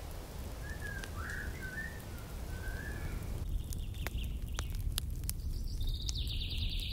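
Small birds chirping: a few short chirps in the first half, then a fast high trill near the end, over a steady low rumble and scattered sharp clicks.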